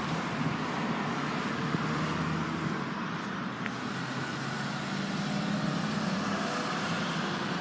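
Steady road-traffic noise: a continuous hum of passing vehicles.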